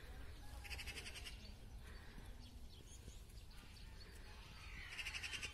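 Faint animal calls: two short, rapidly pulsing calls, about a second in and again near the end, over a steady low rumble.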